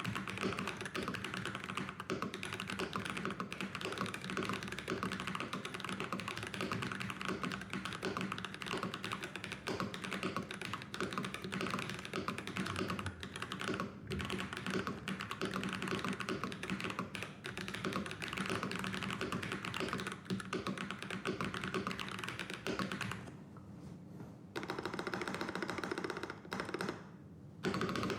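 Fast typing on an Ikki68 Aurora mechanical keyboard fitted with Holy Panda tactile switches and GMK ABS keycaps: a dense, continuous stream of key clacks, broken by two brief pauses near the end.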